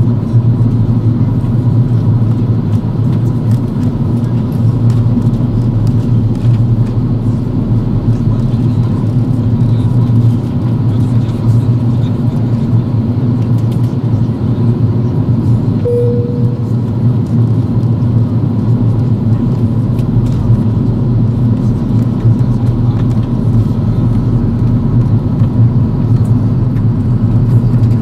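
Steady cabin noise inside an Airbus A330-200 airliner on descent: a low, even drone of engines and airflow. A short faint tone sounds about halfway through.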